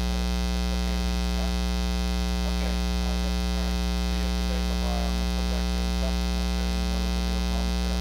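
Steady 60 Hz mains hum with a buzzing edge, electrical interference recorded through the camera while it ran on its AC adapter: a ground-loop fault in the recording, not a sound in the room.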